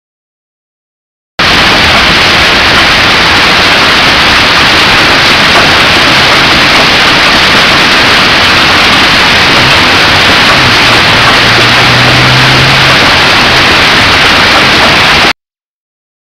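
Heavy hail and rain pelting the ground in a dense, steady hiss, loud enough to nearly overload the recording. It cuts in abruptly about a second and a half in and cuts off abruptly about a second before the end.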